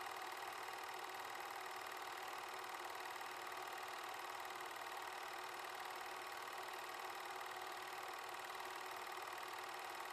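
An 8mm film projector running: a steady mechanical whir with a fast, even clatter that never changes.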